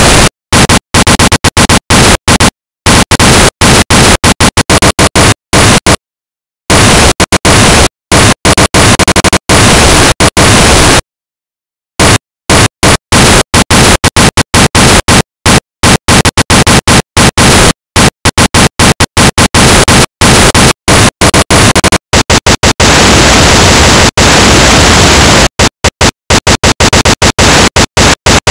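Loud full-range white noise switched abruptly on and off in an irregular stutter, cutting to dead silence for gaps from a fraction of a second to about a second. About three quarters of the way through, the top of the hiss drops away.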